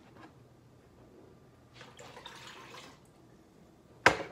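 Mango juice poured from a glass measuring cup into a pot, a splashy pour lasting about a second. Near the end, a sharp knock as the glass cup is set down on the counter.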